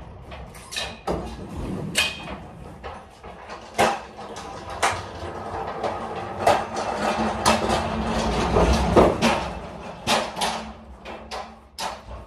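Irregular knocks and clanks over a rolling rumble as a loaded pallet of boxes is worked with a manual pallet jack inside a box truck's cargo area. The rumble is heaviest in the middle.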